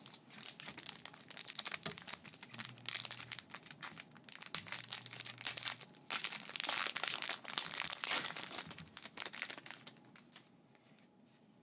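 Foil booster pack of Japanese Pokémon trading cards crinkling and crackling as it is handled and torn open, loudest in the second half, stopping about ten seconds in.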